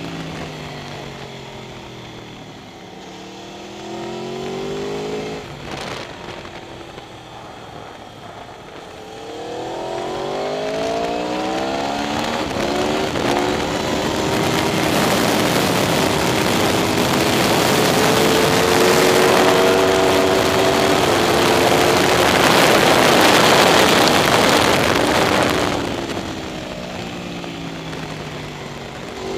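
Aprilia RSV4 R's V4 engine heard from on board at track pace. The revs fall at first, then climb in steps through the gears. A long stretch of high, steady revs follows, drowned in loud wind roar on the microphone. Near the end the roar drops away, and the revs start rising again just before the end.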